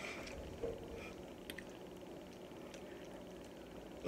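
Quiet room tone with a few faint small clicks, and a short louder burst right at the end.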